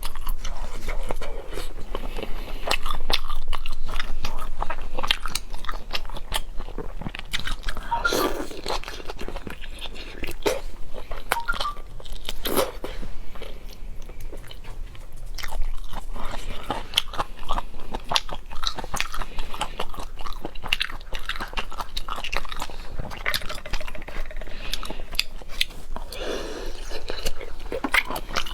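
Close-up eating sounds: a person biting and chewing seafood, with many short wet clicks and crunches throughout.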